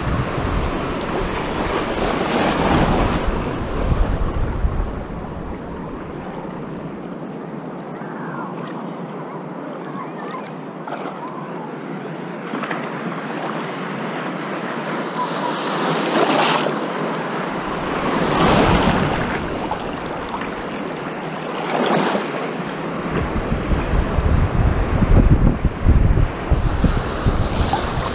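Small ocean waves washing and water sloshing around a camera held at the waterline, with wind rumbling on the microphone. Several waves surge through, the loudest near the end.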